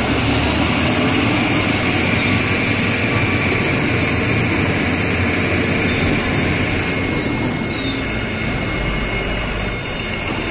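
Large Heli forklift's engine running steadily as it carries a long load of nested steel pipes on a boom attachment. The sound is a constant rumble with no breaks, easing slightly near the end.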